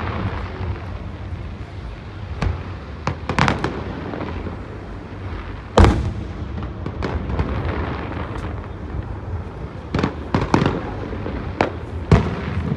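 Aerial fireworks bursting: a string of sharp bangs over steady crackling, the loudest a little under six seconds in and a quick cluster of bangs after about ten seconds.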